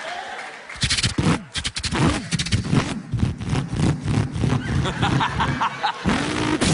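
A man imitating a V8 Holden Torana with his voice: after a short pause, about a second in, a fast-pulsing engine note that revs up and drops in pitch again and again, like an engine revving through the gears.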